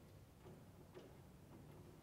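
Near silence, with three faint light clicks about half a second apart.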